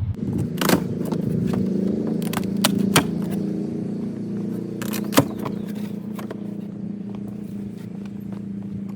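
Cardboard shipping box of a push mower being opened: scraping and a series of sharp snaps and clicks as the flaps and packing are pulled open, over a steady low hum.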